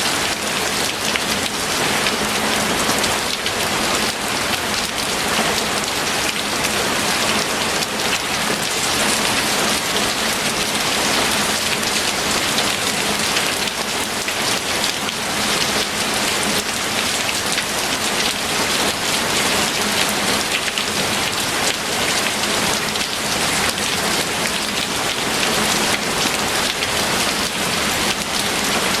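Steady rain falling: a dense, even hiss of many drops that holds the same strength throughout.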